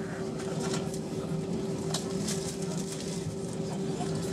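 Airbus A320 cabin noise while taxiing: a steady hum with a constant mid-pitched tone from the idling engines and cabin air, and a few light clicks and rattles scattered through it.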